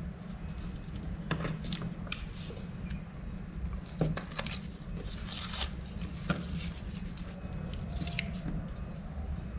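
Paper pattern peeled off a piece of leather, then a small hand blade trimming the leather edges in short scratchy strokes, over a steady low hum.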